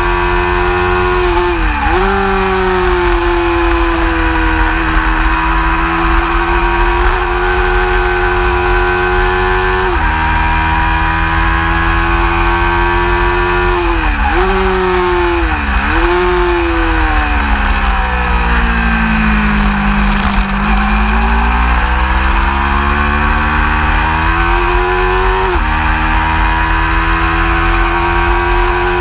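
Race motorcycle engine at speed heard from on board. It holds a steady high note with quick drops in pitch from gear changes a couple of seconds in and twice around the middle. Later it falls through a long slowdown and climbs again, with a steady wind rush underneath.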